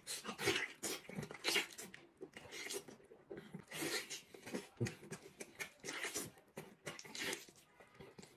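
A man biting and tearing into a braised pork knuckle and chewing it with wet, open-mouthed smacking, in quick irregular bursts.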